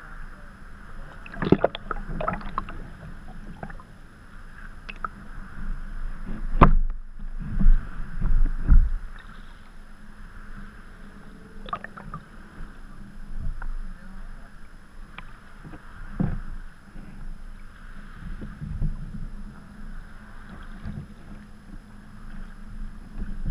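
Sea kayak being paddled on choppy water: paddle blades dipping and splashing, and water slapping against the hull with low thuds. One sharp knock comes about seven seconds in, and the heaviest slaps follow just after it.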